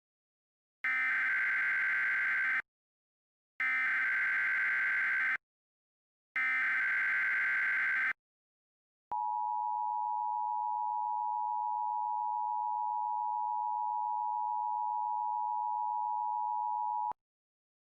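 Emergency Alert System SAME header: three identical bursts of shrill digital data, each about two seconds long, then the NOAA Weather Radio 1050 Hz warning alarm tone, one steady beep held for about eight seconds and cut off abruptly. Together they signal a warning being broadcast, here a severe thunderstorm warning.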